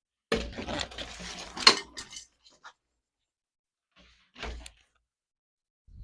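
Dust collection hose being handled and fitted onto the jointer/planer's dust port: a scraping, rattling stretch for about two seconds with a sharp knock near its end, then a short thump about four and a half seconds in.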